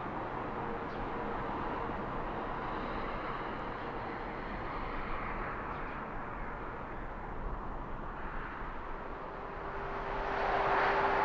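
Steady outdoor background rumble of distant traffic, swelling louder near the end, with a faint steady hum beneath it.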